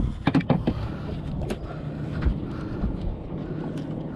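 A boat's motor idles with a steady low hum, and several sharp knocks sound in the first second, then a few single clicks.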